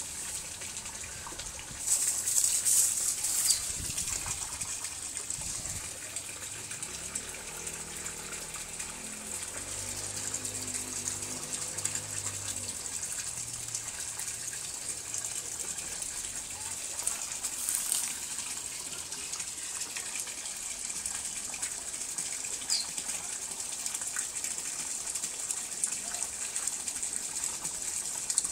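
Steady hiss of running water in a garden pond, louder for a second or so about two seconds in.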